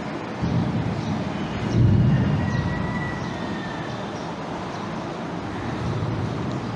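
Whiteboard eraser rubbing and scrubbing across a whiteboard, a continuous rough rumbling noise that swells twice early in the stroke, with a faint thin squeak near the middle.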